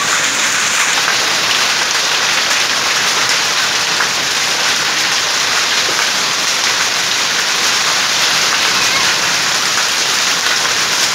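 Heavy rain mixed with small hail pelting the ground, standing water and a hedge: a loud, steady, dense hiss.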